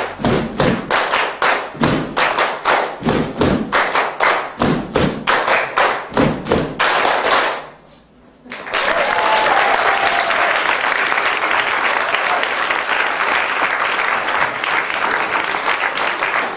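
A steady rhythmic beat of claps and thumps, about two and a half strokes a second, ending the song abruptly. After a brief hush the audience breaks into steady applause.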